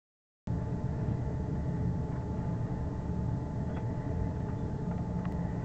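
Steady low rumble of a ship under way, heard from its open bow deck, with wind buffeting the microphone and faint steady machinery tones. It starts about half a second in.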